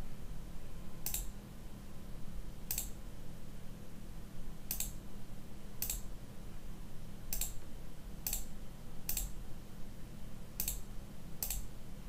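Single computer mouse clicks, nine of them at irregular gaps of about a second, over a faint steady low hum.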